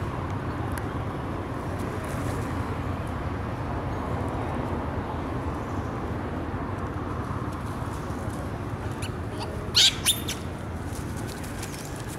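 Outdoor ambience: a steady low rumble and hiss, with two short, sharp high chirps about ten seconds in.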